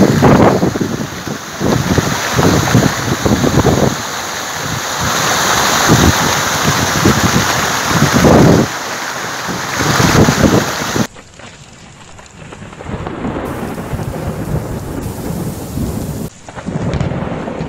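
Floodwater rushing loudly over the steps of a concrete weir, with low rumbling surges. About two-thirds through it cuts off suddenly to a quieter steady hiss.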